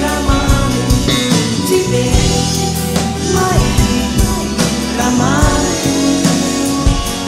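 A live band playing a slow pop song with drum kit, bass and keyboards, a woman singing over it.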